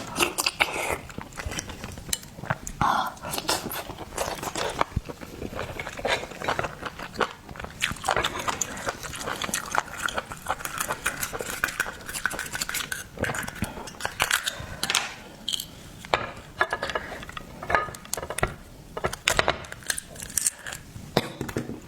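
Irregular clicking and clattering of oyster shells and cutlery against dishes, mixed with eating sounds: biting and chewing of oysters.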